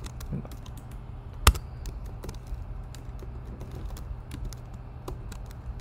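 Computer keyboard keys clicking irregularly as someone types, with one much louder key strike about a second and a half in, over a steady low hum.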